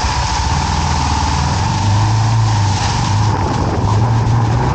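Motorcycle engine running steadily, plausibly the KTM 390 Adventure's single-cylinder engine, with a strong low hum and a hiss of wind and road noise over it.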